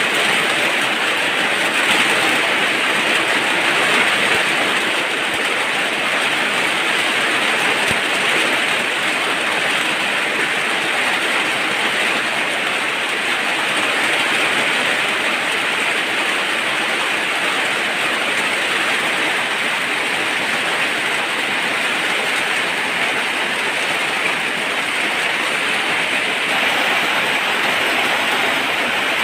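Heavy rain falling, a loud steady hiss that barely changes.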